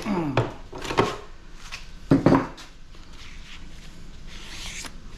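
Metal parts of an air-conditioner unit clanking and knocking as it is taken apart for scrap, with a few sharp knocks, the loudest a double clank just after two seconds, and a scraping rattle near the end.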